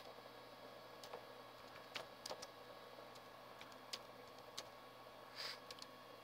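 Slow typing: about nine faint, irregular key clicks against quiet room hiss, with one short soft brushing sound about five and a half seconds in.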